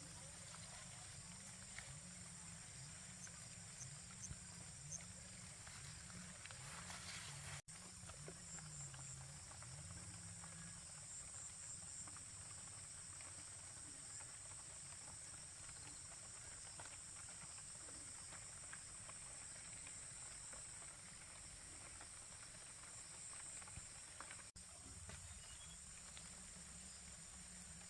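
Faint countryside ambience, carried by a steady high-pitched drone of insects with a few short chirps in it. The sound drops out briefly twice, once about a quarter of the way in and once near the end.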